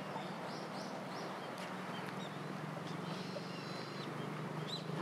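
Small birds chirping and calling over a steady outdoor background with a low hum: a couple of short high calls near the start, a longer held high note a little past three seconds in, and another chirp near the end.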